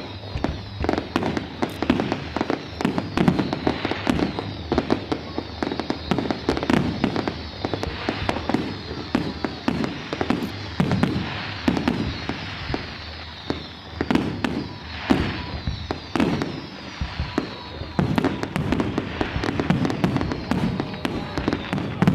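Many fireworks going off together: a continuous rattle of sharp bangs and crackles, with heavier booms every few seconds.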